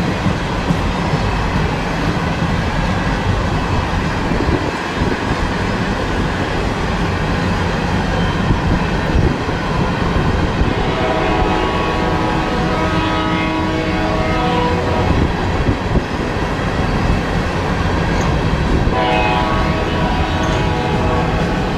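A train rolling past with a steady heavy rumble. A locomotive horn sounds a long chord blast about eleven seconds in, and a second blast begins near the end.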